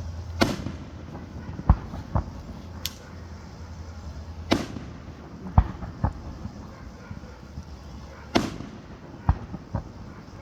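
Fireworks display: shells bursting in irregular bangs, about ten in all. The three loudest come roughly four seconds apart, each with a short crackling tail, and smaller thumps fall between them.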